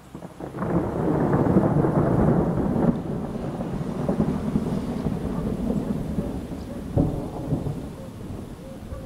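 Thunder: a crackling peal breaks out about half a second in and is loudest over the next two seconds, then goes on as a long rumble with a sharper crack about seven seconds in, slowly fading.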